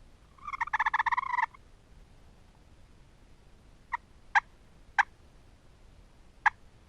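A turkey tom gobbling once, a rapid rattling call lasting about a second. Four short, sharp clucking notes follow, spaced over the next few seconds.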